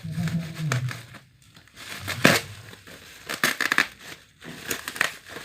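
Packaging being handled during an unboxing: irregular crinkling and rustling with sharp crackles and clicks, the sharpest just over two seconds in.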